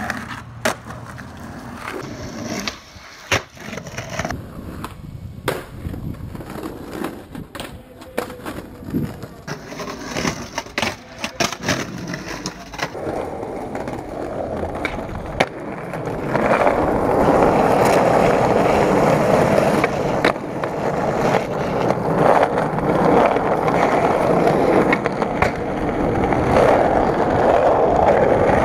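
Skateboard sounds: sharp clacks of tail pops and board landings, then from about halfway a loud, steady rumble of wheels rolling over rough concrete and asphalt.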